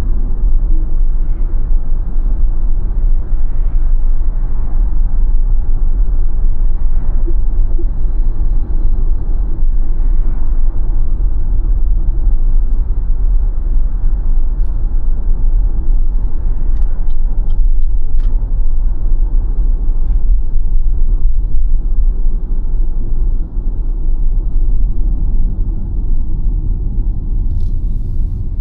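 Steady low road and tyre rumble from a BYD Sealion 7 electric SUV on the move, with no engine note, and a few faint clicks partway through.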